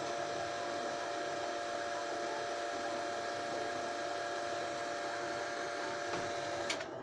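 Steady machine hum holding two steady tones over a hiss, cutting off suddenly near the end.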